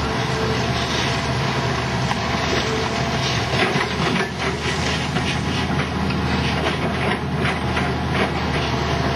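Tracked hydraulic excavator engine running under load while its arm breaks and shoves the concrete slabs of a bunker. Irregular cracking, knocking and grinding of breaking concrete runs over the engine's steady low hum.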